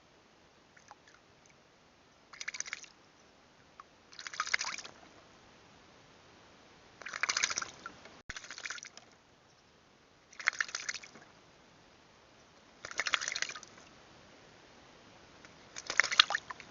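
Eurasian magpie bathing in a garden water trough, flapping and splashing in the water in seven short bursts, each under a second, at irregular intervals.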